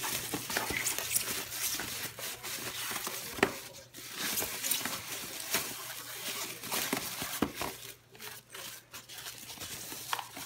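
Thin plastic packaging bags rustling and crinkling as hands open them and pull out packed parts: irregular crackles, with a sharper click a little over three seconds in.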